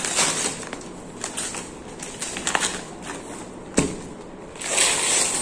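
Gift packaging being handled and unwrapped, with irregular crinkling and rustling, a sharp click a little before four seconds in, and a longer rustle near the end.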